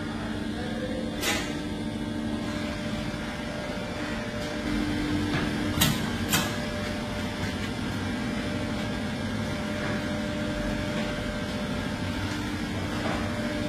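A steady mechanical hum with a few fixed pitches, broken by sharp knocks: one about a second in and two close together about six seconds in.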